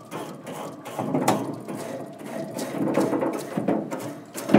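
Grill brush scrubbing the greasy underside of a pellet grill's metal cooking grate in quick, repeated back-and-forth strokes, scraping off baked-on residue.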